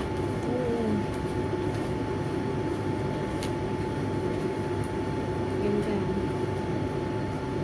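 Steady low droning background noise with a faint, steady high tone above it.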